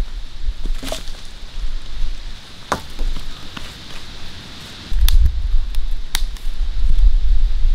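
Dry branches being handled and sorted: a few sharp snaps and clacks, a second or two apart. Low wind rumble on the microphone underneath gets louder about five seconds in.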